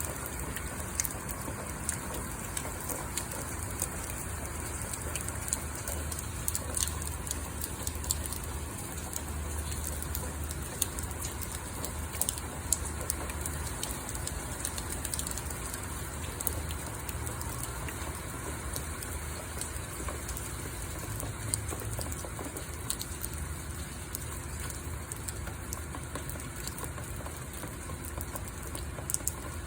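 Steady rain falling, with many separate drops ticking on a hard surface. A low rumble swells underneath for a stretch in the middle.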